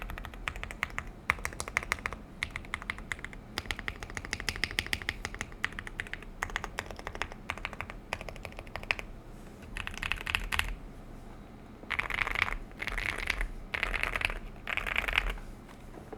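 Typing on a Womier SK75 mechanical keyboard with Akko Rosewood linear switches, tape-modded for a thocky sound. Fast, steady keystrokes, then from about ten seconds in, four or five short bursts of very rapid keypresses.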